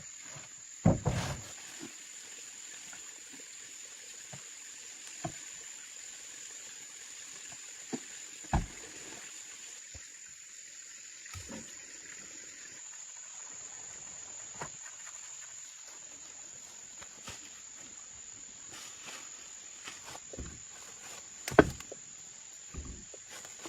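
Steady high-pitched insect buzz, with a few scattered sharp knocks and thuds, the loudest about a second in and near the end.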